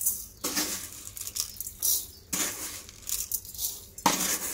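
Coarse granulated sugar poured from a spoon into a dry metal kadai, pattering and rattling onto the bare metal. It comes in a run of short pours, about one spoonful a second.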